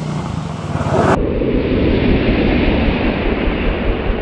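2021 Kawasaki KLX300 single-cylinder dual-sport motorcycle riding up a gravel road and pulling in right beside the camera, engine running under a dense hiss of wind and tyres on gravel. It grows louder about a second in as it closes.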